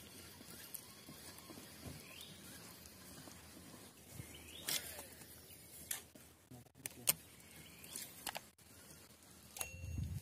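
Faint outdoor background with a few sharp clicks, likely the click effects of an on-screen subscribe-button animation. Near the end comes a short bell-like chime.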